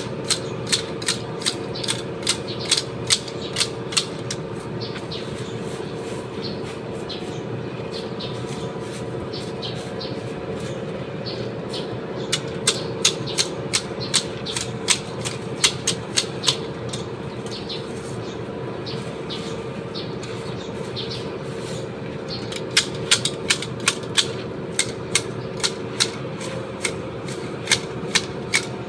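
Garden shears snipping plant stems, sharp cuts about three a second in three runs with pauses between, over a steady mechanical hum.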